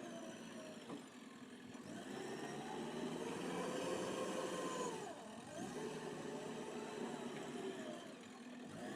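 JCB 3DX backhoe loader's diesel engine working, its revs climbing about two seconds in, dropping sharply just past the middle and picking up again.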